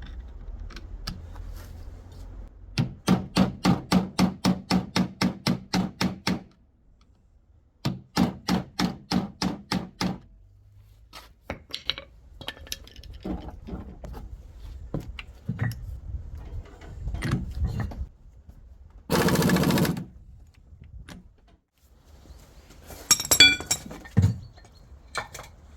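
Workshop tool and metal-part sounds during a gearbox teardown: two runs of rapid, even clicking at about five a second, then scattered knocks, a one-second burst of hissing noise, and a few metal clinks near the end.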